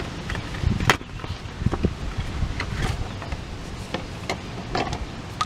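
A spin-on oil filter being twisted off by hand, with scattered small scrapes and clicks of skin and metal over a steady background noise.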